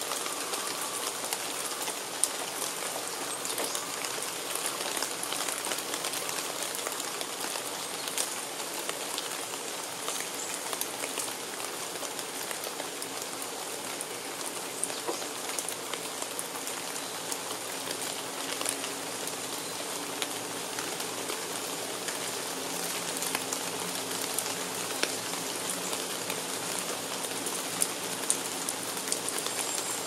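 Steady rain falling on forest foliage: a constant hiss with many single drops ticking through it.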